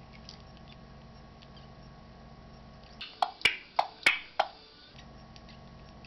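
African grey parrot making a quick run of about five sharp clicks with its tongue and beak, each with a short pitched ring, about halfway through, after a stretch of faint room hum.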